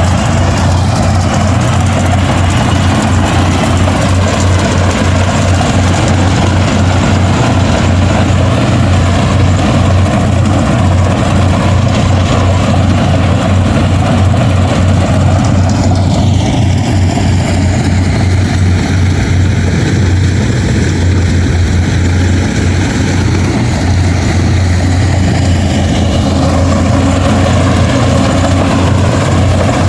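Rice combine harvester's engine running steadily under load while harvesting, a loud continuous low hum with machinery noise. The tone shifts about halfway through and comes back a few seconds before the end.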